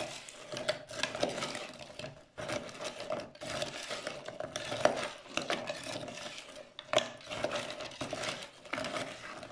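A metal spoon stirs frozen goat-milk and prickly-pear-gel cubes in a plastic jug, scraping and clinking against the cubes and the jug's sides, with a few sharper knocks. Caustic soda is being dissolved into the frozen liquids to make a lye solution for soap.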